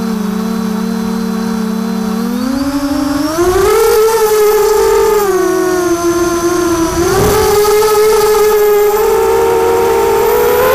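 Brushless motors of a LOBIT 300GT quadcopter running on a 4S battery, heard from the quad itself. A steady whine at low throttle rises in pitch about two seconds in as it spools up and lifts off, then wavers up and down with the throttle in flight.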